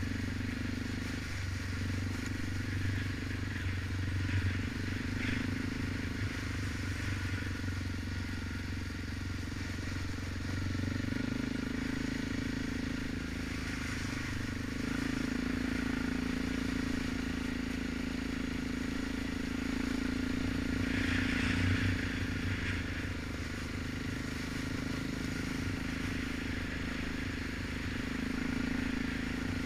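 Suzuki KingQuad 700 ATV's single-cylinder four-stroke engine running while riding, its note rising and falling with the throttle, over a rattle of tyres and bodywork on a rough, muddy track.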